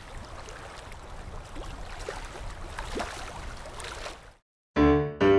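Sea water washing and lapping, an even hiss of water noise that fades out about four seconds in. After a short silence, a ragtime piano tune starts near the end.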